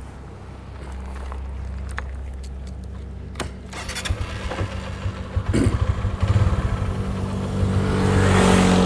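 A motorcycle engine running close by, its low putter growing louder and rougher from about four seconds in, with a rush of road traffic swelling near the end.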